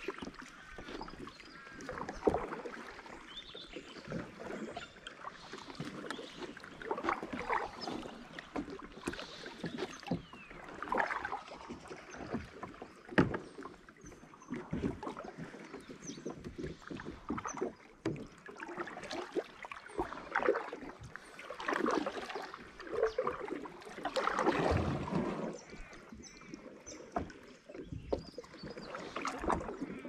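Kayak paddle strokes in calm water: the blades dipping, pulling and dripping, with a splash every second or two at an uneven pace.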